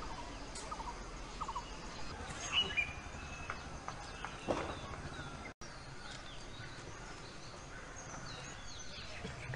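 Forest ambience with a steady hiss and scattered short chirps and whistles from several birds, the loudest a little over two seconds in. The sound cuts out for an instant a little past halfway.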